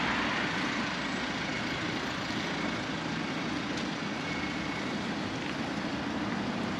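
City street traffic: a car's noise fades away over the first second, leaving a steady hum of traffic.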